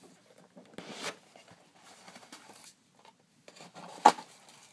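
Rustling and handling of wand packaging, with one sharp knock or click about four seconds in.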